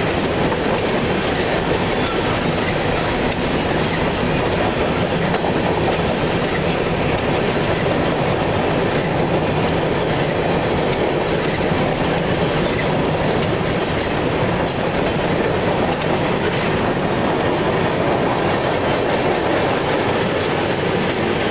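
Freight train of covered hopper cars rolling steadily past at close range: the continuous noise of steel wheels running on the rails, without pause.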